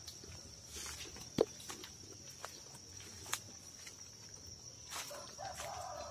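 Footsteps on leaf litter and twigs along a steep forest path: irregular crunches and clicks, with one sharper crack about a second and a half in. A steady high insect drone runs behind, and a bird calls near the end.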